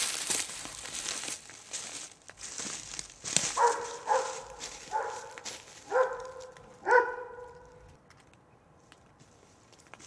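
Footsteps crunching on a forest trail, then a dog barking five times, about a second apart, the last bark the loudest.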